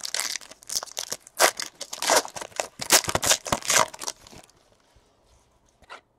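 The foil wrapper of a 2017 Panini Elite Extra Edition baseball card pack being torn open and crinkled by hand: a rapid run of crackling rips lasting about four and a half seconds.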